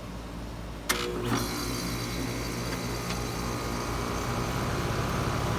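A 5-ton Carrier Comfort Series heat pump's outdoor unit starting up: a sharp click about a second in, then the compressor and fan come on and run with a steady hum that builds slightly.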